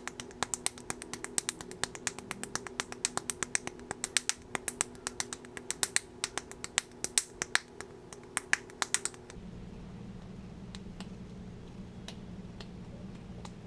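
Cupped palms slapping a ball of clay, a quick even run of several slaps a second as the lump is patted into a ball for a pinch pot. The slapping stops about nine seconds in, leaving only a few light taps.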